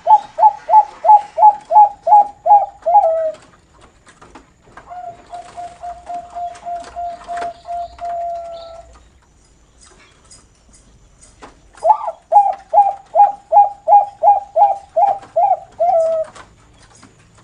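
Bangkok-line zebra dove (perkutut) singing its cooing song in the style fanciers call 'noklak': a rapid series of clear, evenly spaced notes that ends about 3 s in, a softer run of quick notes in the middle, then a second loud rapid series after a pause.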